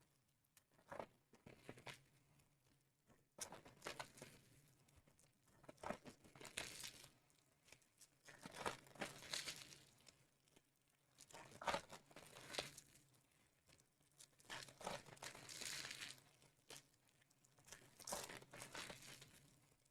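Trading-card hobby box packaging being opened by hand: plastic wrap and cardboard crinkling and tearing in short, separate bursts, about nine times, quiet in between.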